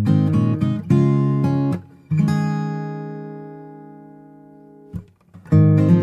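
Background music of an acoustic guitar strumming chords. About two seconds in, one chord is left ringing and fades out over about three seconds, and the strumming starts again near the end.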